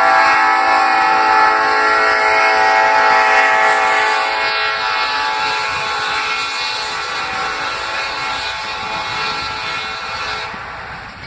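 Ferromex freight locomotive's air horn sounding one long held blast, fading as the train draws away and cutting off near the end, over the rumble of passing freight cars.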